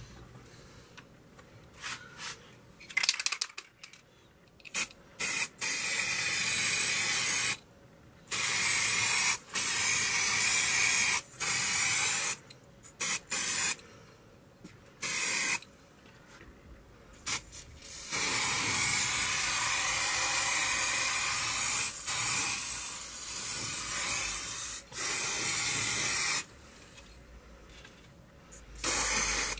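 Aerosol can of acrylic spray paint hissing in repeated bursts, most lasting one to two seconds, with one long spray of about six seconds past the middle.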